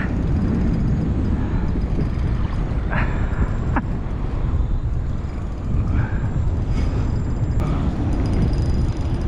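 Wind buffeting the microphone: a steady low rumble, with a couple of faint short clicks about three to four seconds in.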